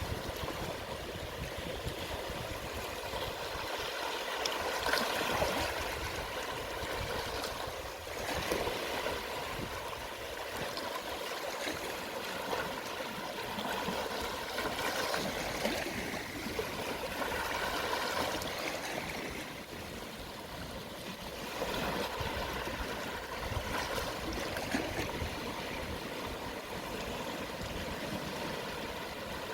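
Gentle sea waves at low tide washing and trickling over the shore in a continuous wash. It swells and eases every few seconds as each wave comes in.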